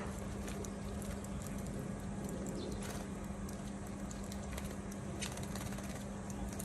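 A steady low hum, like a running air-conditioning unit, under faint scattered light taps and patter of sparrows bathing in a shallow bowl of water.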